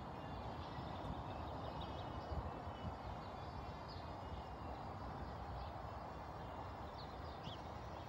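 Small birds chirping over a steady background hiss, with a few faint, soft hoof thuds from a pony trotting on the sand arena.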